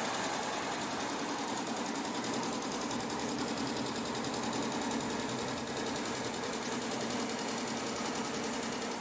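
ShengMing multi-head computerized embroidery machine stitching, its needle bars on several heads running together in a rapid, even rhythm.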